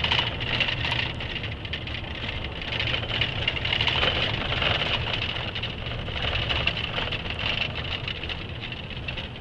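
Truck engine running steadily while driving, heard from inside the cab: a constant low hum under a steady high hiss of road and cab noise.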